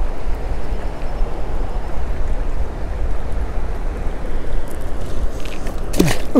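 Wind buffeting the microphone outdoors, a steady low rumble with no pitched sound in it. A brief sharp sound with a quick falling pitch comes near the end.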